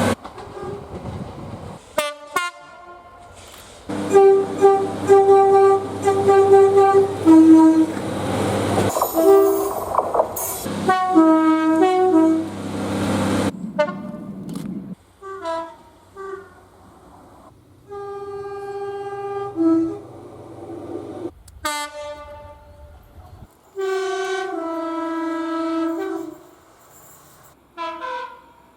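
A run of British train horns from several different trains, one after another. Mostly two-tone horns sound short and longer blasts, a high note then a low note, with the rumble of a passing train under the blasts in the first half.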